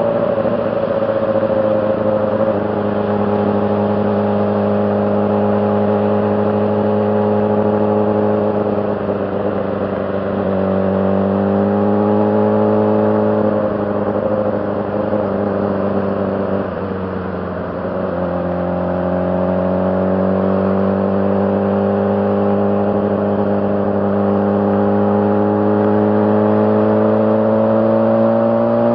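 2006 Honda CBR600RR's inline-four engine running steadily at mid revs, easing off about ten seconds in and again around seventeen seconds, its pitch climbing back each time.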